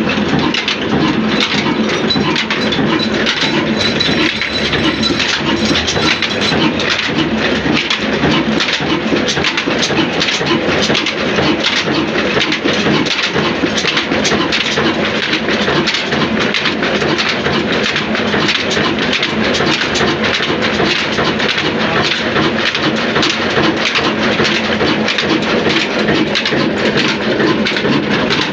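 Newshahi horizontal diesel engine with a big flywheel running steadily under belt drive: a loud, continuous mechanical rumble with dense clattering.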